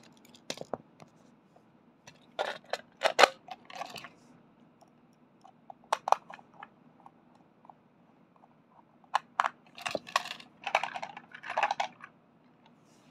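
Hard plastic clicks and rattles from a Plarail toy train being handled and snapped together, coming in several short irregular clusters.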